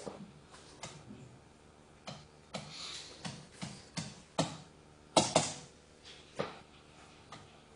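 Pen tapping and scratching on a writing surface during handwriting: a string of irregular light taps, with the loudest pair about five seconds in.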